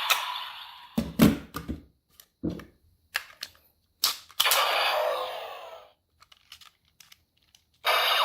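Plastic clicks and knocks from handling a DX Cyclone Riser toy transformation belt, about five sharp ones in the first four seconds. They are followed by a short electronic effect from the toy's speaker that fades out, and another toy sound starts near the end.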